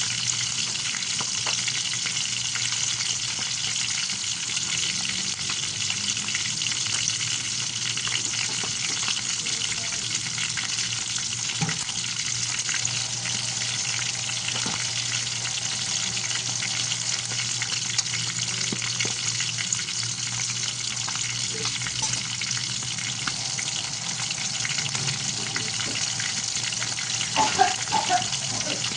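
Milkfish frying in hot oil: a steady sizzle with scattered small pops and crackles. A few short pitched sounds come near the end.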